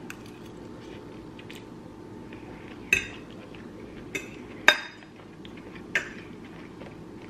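Metal fork clinking against a ceramic plate four times as food is picked up, the loudest clink about two-thirds of the way through, over a faint steady hum.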